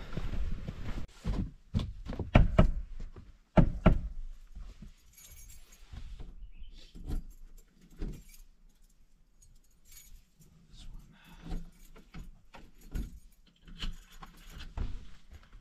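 A few heavy footsteps in the first few seconds, then keys jangling and clicking in a door lock as the cabin's front door is unlocked.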